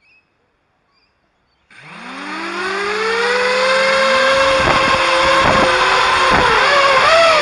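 FPV racing quadcopter's brushless motors and propellers spinning up about two seconds in: a whine that rises in pitch, then holds steady, wavering up and down near the end as the throttle changes.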